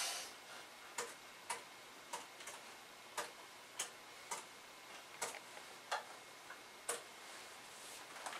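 Faint, unevenly spaced clicks from a laptop being operated, about one every half second to a second, over quiet room tone.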